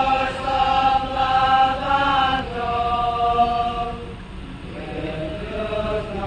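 Devotional chant sung by voices in slow, long-held notes, with a short pause between phrases a little past the middle.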